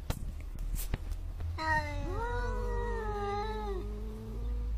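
Domestic cats in a standoff, caterwauling: a long, drawn-out yowl with wavering, gliding pitch starts about a second and a half in and lasts some three seconds. It is the threat call of cats squaring up to fight. Two sharp clicks come before it.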